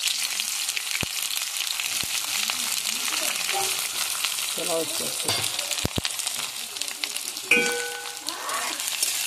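Sliced onions sizzling steadily as they fry in hot mustard oil in a steel kadhai, with a few small clicks. A sharp, briefly ringing clang comes about seven and a half seconds in.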